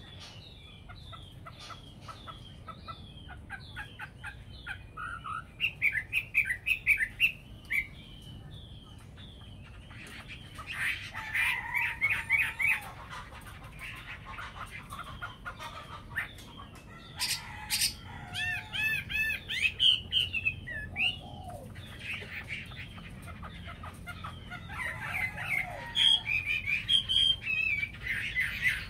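Hwamei (Chinese melodious laughingthrush) calling and singing: a steady run of short down-slurred whistled notes, broken by louder, fast song phrases several times.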